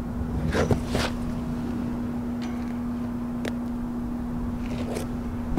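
Location background sound: a steady low hum over a rumbling noise bed, with a few short, scattered clicks or scuffs.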